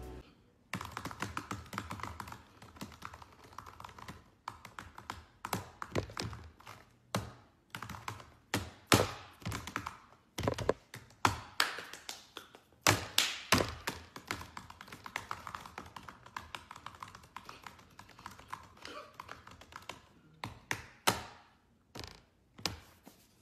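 Fast, irregular typing on a laptop keyboard, with hard, exaggerated keystrokes of uneven loudness.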